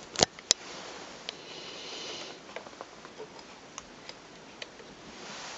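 Two sharp clicks in quick succession, then faint scattered ticks and rustles from hands handling the camera desk lamp as it is switched on.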